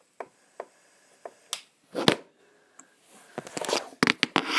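Handling noise: a few separate sharp clicks and knocks in the first two seconds, then a denser stretch of choppy clatter and rustling from about three seconds in.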